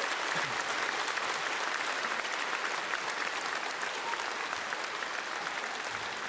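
A large concert-hall audience applauding at the end of a song, the clapping easing off slightly toward the end.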